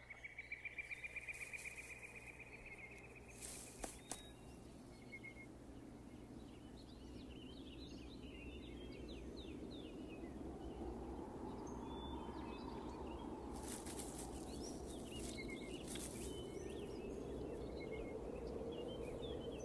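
Woodland ambience in a film soundtrack: birds chirping and calling, with a rapid trill in the first few seconds and a few brief rustles. A faint low drone swells up in the second half.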